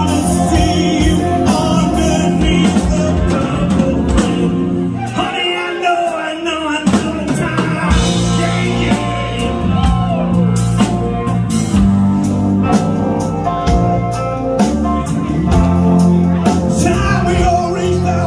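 Live rock band playing: electric guitars, bass guitar and drum kit with a lead singer. About five seconds in the bass and drums drop out for a couple of seconds while the higher parts carry on with sliding pitches, then the full band comes back in.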